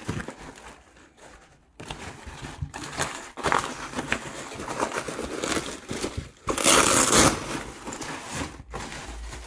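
Fabric of a round umbrella-base sandbag rustling and crinkling as hands fold and pull at it, starting about two seconds in, with a louder burst of rustling about seven seconds in.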